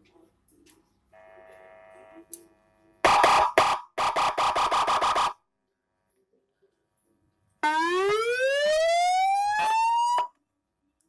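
Electronic 7-tone siren module sounding through a 20-watt Narae horn loudspeaker, switching between tones: a short loud burst about three seconds in, then a rapid pulsing tone for about a second. After a pause, a police-escort style siren wail rises steadily in pitch for about two and a half seconds and cuts off suddenly.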